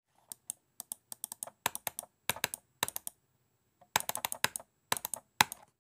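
Computer keyboard typing: rapid, irregular key clicks in clusters, with a pause of about a second in the middle, then more flurries of keystrokes.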